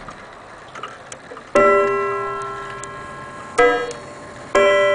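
Antique German Vienna wall clock striking on its coiled wire gongs, set off by turning the minute hand: three strikes, each ringing and slowly fading, the middle one on a different pitch from the other two. Faint ticking comes before the first strike.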